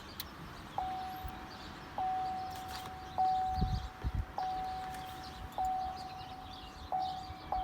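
2016 Chevrolet Silverado's warning chime ringing, one clear tone a little more often than once a second, coming faster near the end. A couple of low thumps sound about three and a half seconds in.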